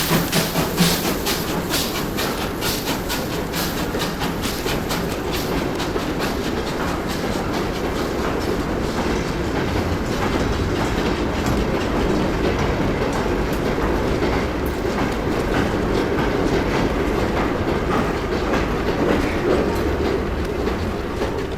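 Train passing, its wheels clicking rhythmically over rail joints above a steady rumble, starting to fade near the end.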